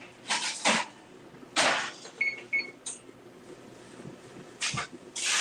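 Kitchen handling noises: a handful of short knocks and clatters, with two short electronic beeps from an appliance about two seconds in.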